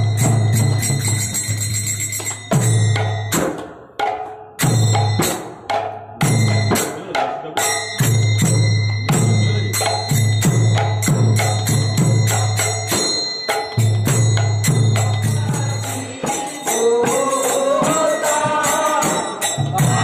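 Bengali devotional kirtan: khol barrel drums beating a steady rhythm with high ringing metal cymbals over them, and voices chanting in from about three-quarters of the way through.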